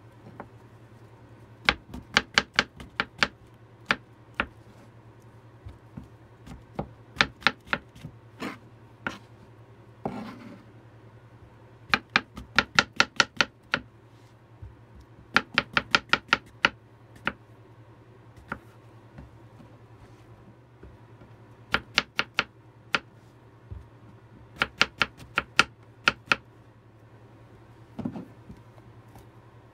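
Chef's knife slicing button mushrooms on a plastic cutting board: runs of quick, sharp knocks of the blade striking the board, several a second, with short pauses between runs.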